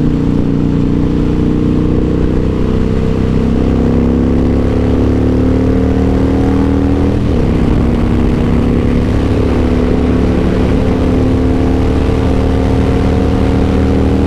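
2002 Harley-Davidson Softail Deuce's V-twin engine pulling under acceleration, its pitch climbing steadily. About seven seconds in it shifts up a gear: the pitch drops briefly, then climbs again.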